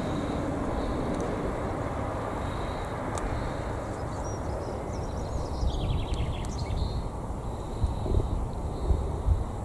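Open-air ambience: a steady distant rumble of traffic, a brief bird chirping about six seconds in, and gusts of wind on the microphone near the end.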